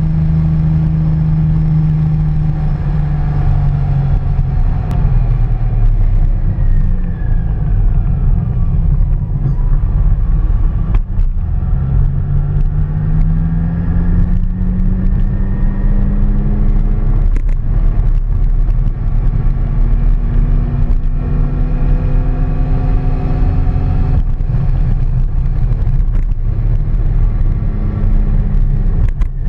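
Engine of a moving road vehicle, its pitch falling and rising again several times with speed and gear changes, under a heavy low wind rumble on the microphone. A few brief knocks stand out along the way.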